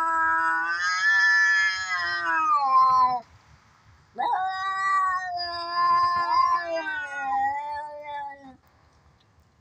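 Cat yowling (caterwauling), the drawn-out threatening call of a cat fight: one long yowl that ends about three seconds in, then after a short pause a second long, wavering yowl that dies away about a second before the end.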